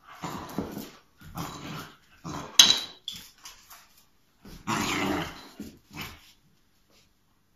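Puppy growling in short rough bursts, about seven times, in frustrated play with a beef bone it can't get hold of. A single sharp click about two and a half seconds in.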